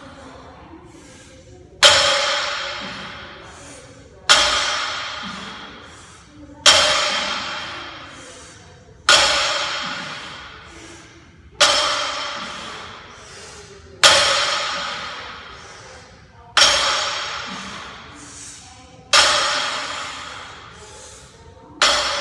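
Loaded barbell with iron plates, about 205 lb, set down on a rubber gym floor at the bottom of each deadlift rep: nine sharp clanks about two and a half seconds apart, each ringing and slowly fading.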